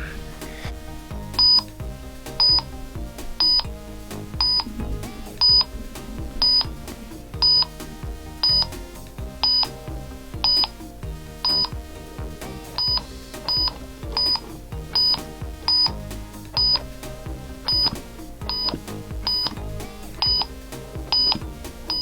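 Upbeat electronic music with a short, high beep repeating evenly about once a second.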